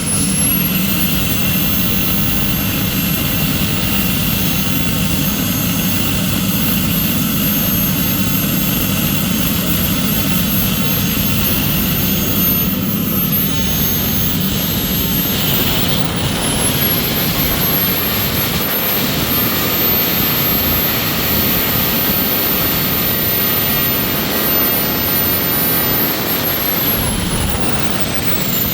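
Kerosene gas turbine of a large RC jet running hard, a loud steady jet rush under a very high whine. The whine climbs sharply about halfway through, then settles high and falls in pitch near the end as the turbine slows.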